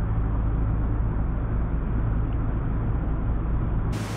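Narrowboat diesel engine running steadily, a low hum as the boat motors slowly out onto the river.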